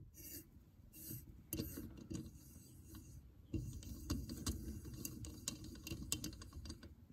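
M6 tap being turned by hand in a cast engine case, cutting threads: irregular small metallic clicks and ticks as the tap cuts and the chips break, over a low rumble.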